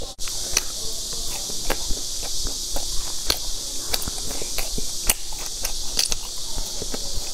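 Close-up mouth sounds of crunchy chewing on a sesame-coated fried pastry: irregular crisp crunches and clicks, several a second, over a steady hiss.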